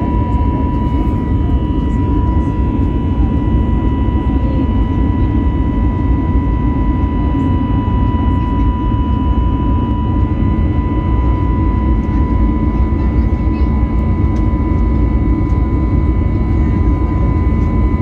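Airbus A321neo jet engines heard from a seat over the wing during the climb: a steady low rumble with a steady high whine on top.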